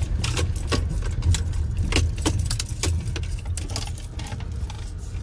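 Low rumble of a car driving slowly, heard inside the cabin, with irregular light clicks and clinks a few times a second.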